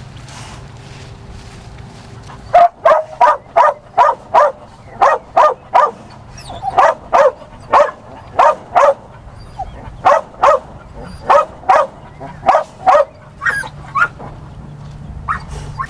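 A dog barking over and over, about two to three loud barks a second, starting about two and a half seconds in and going on in runs with short pauses.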